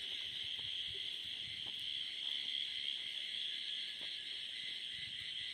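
Steady, high-pitched chorus of night insects such as crickets, running without a break.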